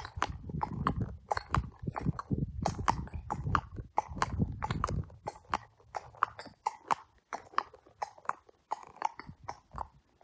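A Thoroughbred horse's hooves striking a wet tarmac road in a steady clip-clop rhythm, sharp clicks about three times a second.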